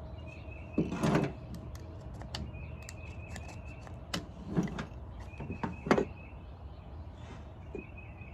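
A utility knife blade scraping and shaving the plastic nubs on the end of a clutch cable, in a few short strokes, the strongest about a second in and again around four and a half and six seconds in. A faint high chirping repeats in short runs behind it.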